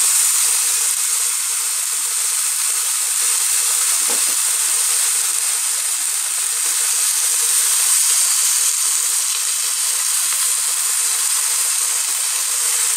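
Marinated chicken pieces sizzling steadily in a hot pan, frying in the olive oil of their marinade.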